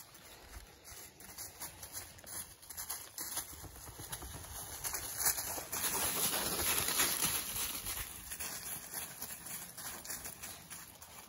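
Large dogs walking through dry fallen leaves: a crackling rustle of many paw steps, loudest about halfway through as one dog comes close.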